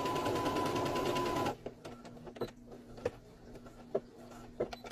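Electric sewing machine stitching through layered fabric, its needle strokes in a rapid even rhythm over a steady motor whine, stopping abruptly about a second and a half in. After that, a few light clicks and taps.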